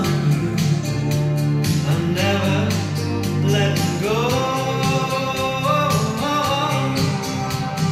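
Music played from a vinyl record on a Michell turntable: a song with singing over a steady bass and beat.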